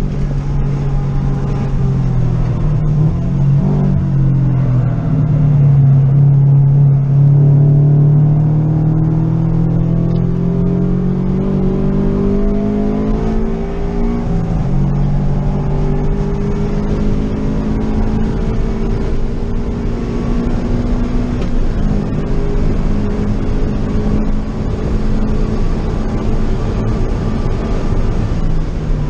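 Scion FR-S's 2.0-litre flat-four engine at high revs, heard inside the cabin through an aftermarket header and Tomei Ti80 titanium exhaust. The engine note climbs for several seconds at a time and drops back a few times as the driver lifts and changes gear, with road and tyre noise underneath.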